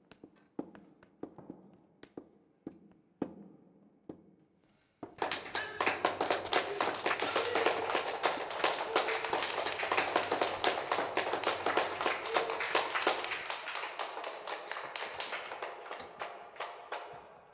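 Hard-soled shoes stepping on a wooden floor, one step about every half second, then audience applause that starts suddenly about five seconds in and dies away near the end.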